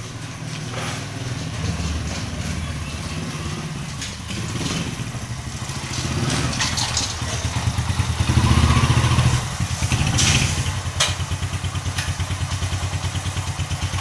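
Win Detech 110 motorcycle's single-cylinder engine running at low speed, rising with a brief rev about halfway through, then settling into an even idle putter of about five beats a second near the end, with a couple of knocks.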